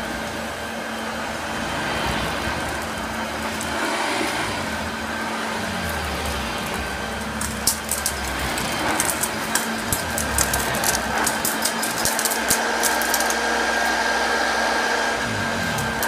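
1971 Hoover Junior 1354A upright vacuum cleaner running steadily with a constant hum as it is pushed over carpet. From about halfway, a rapid string of sharp clicks and ticks as grit and chunks of dirt rattle up through it.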